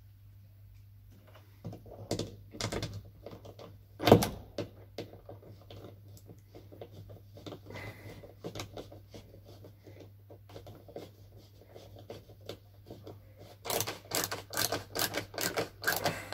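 Hand screwdriver clicking and rattling as a screw is driven by hand through a wooden ceiling batten. There is a sharp knock about four seconds in and a fast run of clicks near the end.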